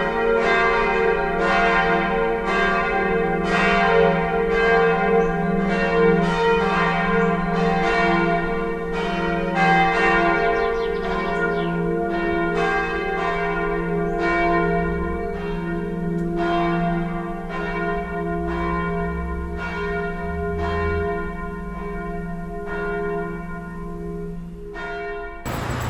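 Church bell ringing: repeated strikes, each leaving a long ringing hum, growing slightly quieter over time. The ringing cuts off suddenly near the end, giving way to traffic noise.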